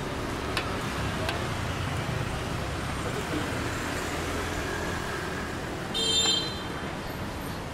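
Steady street traffic noise, with a brief shrill sound about six seconds in.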